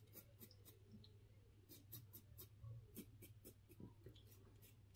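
Faint, short scraping strokes of a Derby Samurai 3 Platinum disposable razor cutting week-long beard stubble around the mouth, several strokes a second in an uneven rhythm.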